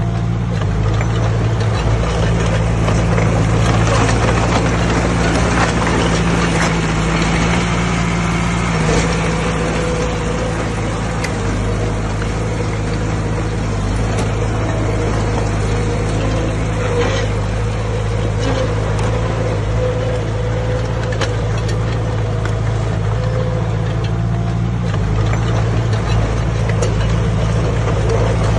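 Heavy diesel engine of earthmoving machinery running steadily under load, with a few brief clanks.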